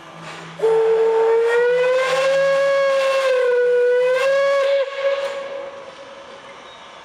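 Steam locomotive whistle blown once in a single long blast of about four seconds, its pitch rising slightly and dipping before it cuts off and fades away.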